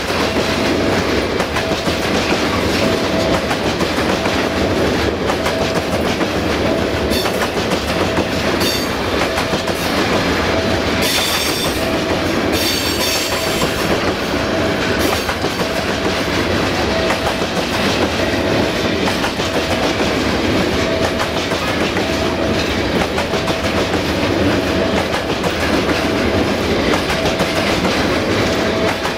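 Freight train of hopper wagons rolling past at close range, a steady clatter of steel wheels over the rail joints, with a couple of brief high wheel squeals near the middle. Behind it a faint beep repeats about once a second.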